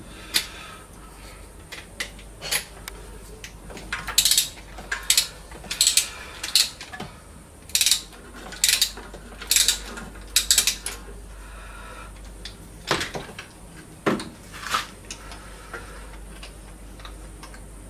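Metal hand tools and engine parts working during an engine teardown: a run of short, sharp metallic rasps and clinks, about one a second for several seconds in the middle, with a couple more near the end.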